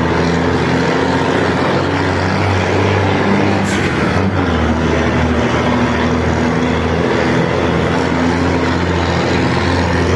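Mercedes-Benz 1620 truck's six-cylinder diesel running loud and steady through a straight-through exhaust with no muffler. A short hiss comes a little under four seconds in, and the engine note dips briefly just after it.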